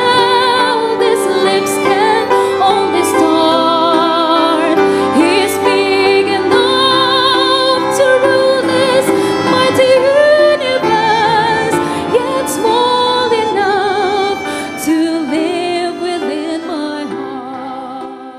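A woman sings long sustained notes with wide vibrato into a microphone, over steady instrumental accompaniment. This is the closing of a gospel song, and the music fades out over the last few seconds.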